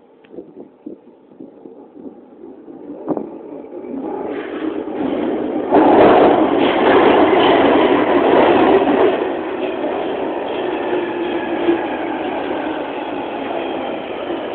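A London Underground Jubilee line train (1996 Stock) pulls into the platform. Its rumble builds from about four seconds in and is loudest as the front sweeps past, about six seconds in. It then settles as the train slows, with a faint whine falling in pitch as it brakes.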